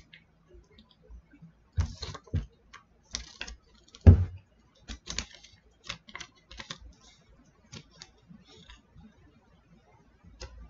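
Irregular clicks and taps of hands handling a small blue portable speaker and its parts, with one louder thump about four seconds in.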